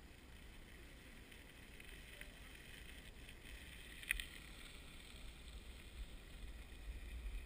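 Faint wind rumble on the microphone, with a faint hiss that swells a little toward the end and one short click about four seconds in.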